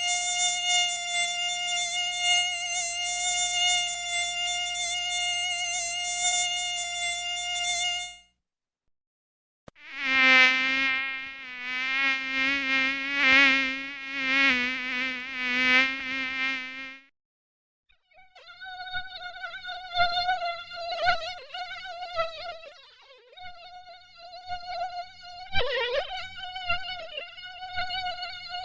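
Mosquito wings whining in flight, in three separate stretches split by short silences. It starts as a steady high-pitched whine. After about a second and a half of silence comes a lower whine that swells and fades as if passing close by the ear. After another short gap the high whine returns, wavering in pitch and loudness.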